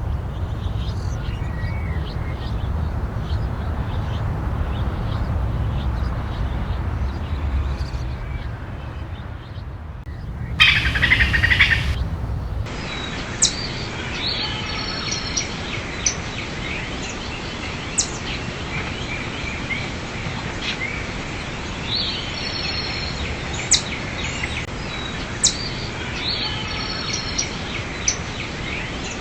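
Nature field recordings full of bird chirps over a steady outdoor background noise. About ten seconds in there is a short, louder call lasting about two seconds, then a different recording with sharp, scattered chirps.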